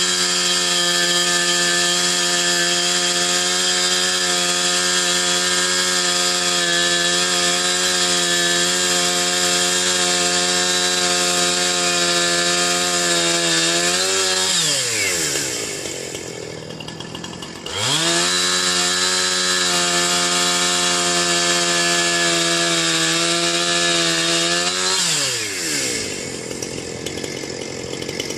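Chainsaw held at full throttle cutting into a chokecherry tree, then let back to idle about halfway through. It revs up again a few seconds later and drops back to idle near the end.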